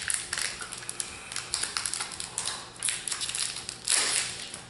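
Foil wrapper of a Magic: The Gathering booster pack crinkling and tearing as it is pulled open by hand: an irregular run of crackles, with louder crinkling about two and a half seconds in and again about four seconds in.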